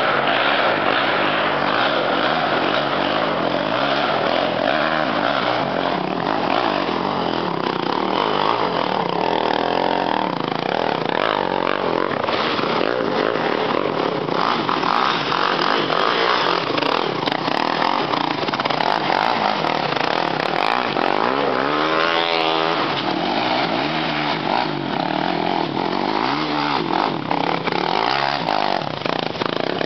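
Single-cylinder four-stroke 450 sport ATV engines revving hard under load as the quads climb a steep hill. The engine note rises and falls with the throttle, with repeated sweeps up and down in pitch about two-thirds of the way through.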